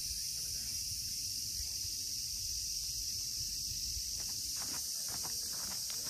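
Steady high-pitched drone of a cicada chorus, with a few footsteps on a dirt trail near the end.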